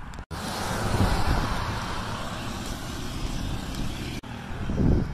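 Road traffic passing: tyre and engine noise from a car swells about a second in and slowly fades, with a couple of low thumps, one about a second in and one near the end.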